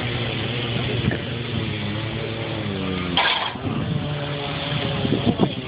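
Car engine running with a steady low hum, its pitch shifting slightly, with a short hissing burst about three seconds in.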